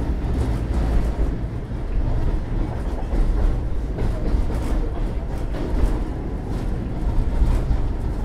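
Tatra T3A tram running along the line, heard from inside the passenger saloon: a steady low rumble of steel wheels on the rails and the running gear, with a few faint clicks from the track.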